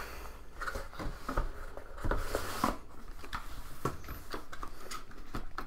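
Cardboard boxes being handled: a retail software box rubbing and sliding against its brown cardboard outer box, with light knocks as it is set down and turned over on a wooden table, and a longer scrape about two seconds in.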